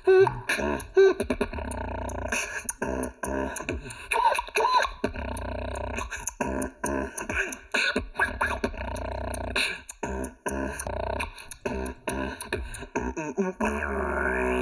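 Beatboxing: rapid mouth-made percussive clicks and snares over a steady deep bass hum, and near the end a held pitched tone with strong overtones.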